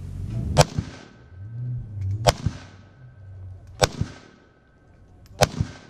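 Century Arms C39 V2 AK-47-pattern rifle in 7.62×39 mm firing four single aimed shots, evenly spaced about a second and a half apart, each followed by a fainter crack a fraction of a second later.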